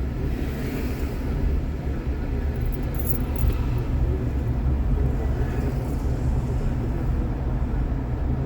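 Steady low rumble of a car driving, road and engine noise heard from inside the cabin, with a short hiss about three seconds in.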